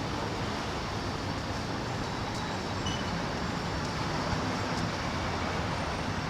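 Steady city traffic noise from a backed-up street of cars, an even rumble with no single vehicle standing out.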